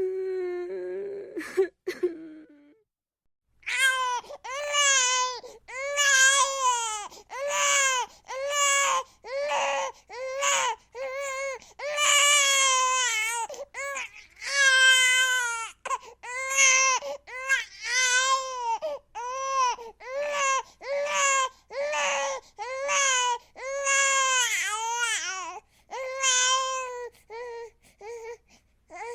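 Infant crying in a long run of high-pitched wails, about one a second, each rising and falling in pitch. This starts a few seconds in, after a brief lower-pitched whimper and a short silence.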